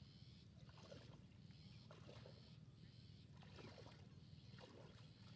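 Faint sloshing and swishing of pond water as a person wades through it, a soft swish every second or so over a low steady hum.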